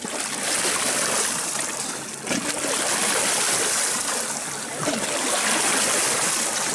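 Lake water lapping and splashing, a steady hissing wash of small waves that swells and eases a little.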